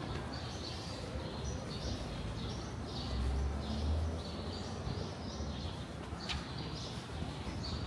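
A small bird chirping over and over, about two short calls a second, over a low street rumble that swells briefly about three seconds in.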